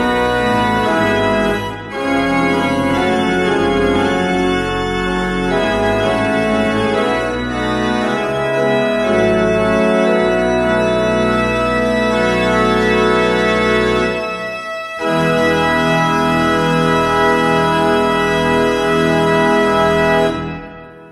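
Restored 18th-century baroque pipe organ playing a chorale in sustained full chords, with two short breaks between phrases, the first about two seconds in and the second about three-quarters of the way through. The final chord is released near the end and dies away in the church's reverberation.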